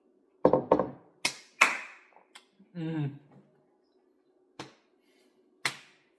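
Two brief wordless voice sounds among several sharp clicks and taps, the loudest about a second and a half in.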